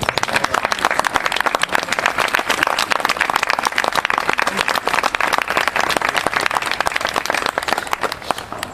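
A small crowd applauding, with dense, quick hand claps that thin out and fade near the end.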